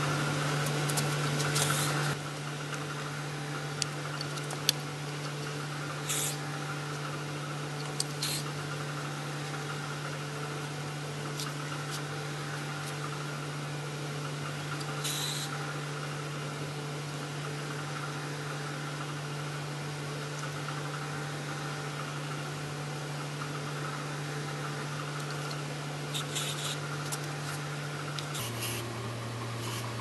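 Handheld hair dryer running steadily with a motor hum and a rush of air. Its level drops about two seconds in, and its hum drops to a lower pitch near the end. A few faint clicks are heard along the way.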